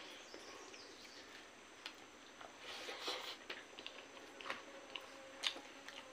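Faint eating sounds of a bare hand mashing and mixing rice with meat on a banana leaf: soft squelches and scattered small clicks, with a few sharper clicks in the second half.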